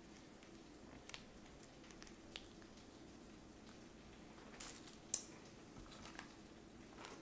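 Faint crinkling and squishing of a plastic ranch dressing sachet being torn open and squeezed out, with a few light clicks, the sharpest about five seconds in.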